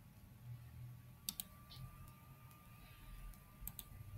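Computer mouse button clicked twice, about two and a half seconds apart. Each click is a quick press-and-release pair, over a faint low room hum.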